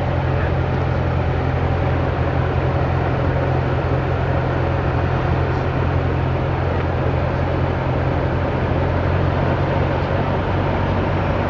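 Cessna 172's piston engine and propeller running steadily in flight, heard from inside the cabin: a deep, even hum under a wash of noise.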